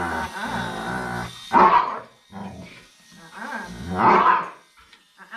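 Akita growling low and steadily, then barking sharply twice, about one and a half and four seconds in, with shorter growls between. This is the dog's defensive warning at the groomer handling him.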